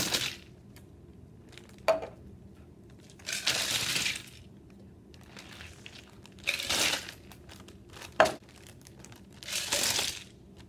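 Ice cubes poured from a plastic cup into a gallon-size zip-top plastic bag, clattering in about four pours roughly three seconds apart, with the plastic bag crinkling and a sharp knock about eight seconds in.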